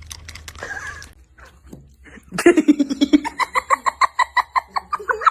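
A person laughing hard in a quick, even run of pulses, starting low and rising higher in pitch, beginning about two seconds in.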